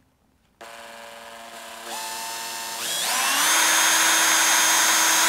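Cordless drill starting about half a second in and speeding up in two steps to a steady high whine as it bores a small hole into the old transmission-side engine shaft seal.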